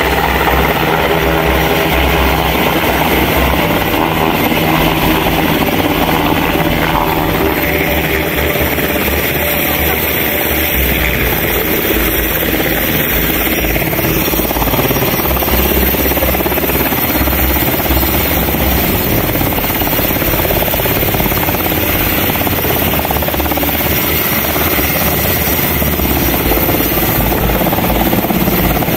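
Sikorsky UH-60L Black Hawk helicopter, with a four-blade main rotor and twin General Electric T700 turboshaft engines, running loud and steady as it flies in close and hovers low over the landing zone.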